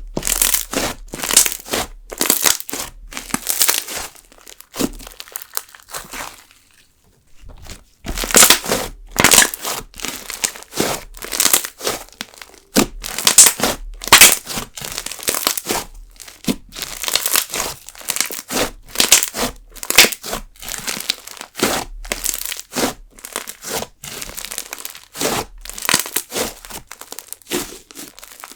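Fluffed-up jelly slime with sugar beads being squeezed and folded by hand, giving rapid clusters of crackling bubble pops, with a pause of about two seconds around six seconds in.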